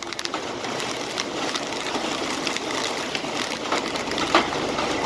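Heavy wind-driven rain pelting a vehicle, heard from inside: a dense hiss crowded with sharp patters and ticks, with one louder hit about four seconds in.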